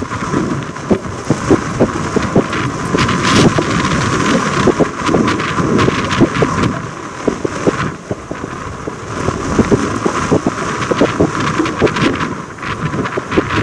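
Steam locomotive working as it approaches, its exhaust and running noise mixed with heavy wind buffeting on the microphone.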